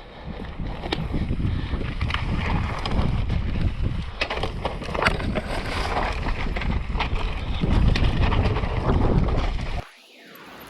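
Mountain bike riding down a rocky trail: wind rushing over the microphone, tyres rumbling over rock and the bike rattling, with many sharp clacks. The noise drops away abruptly near the end.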